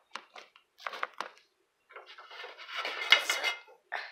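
Pots and pans clattering as they are handled and moved on a stovetop: a few short clinks, then a longer rattling stretch with one sharp knock about three seconds in, the loudest moment.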